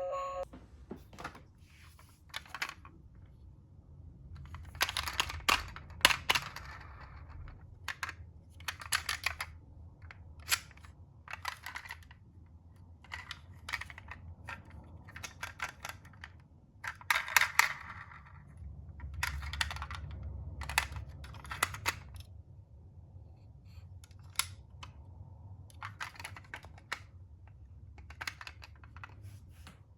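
Irregular clicks, taps and short rustles of a small plastic toy being handled, with no siren or music sounding.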